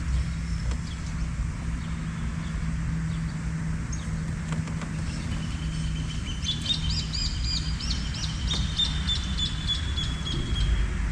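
A songbird singing a fast run of repeated high chirps through the second half, over a steady low hum.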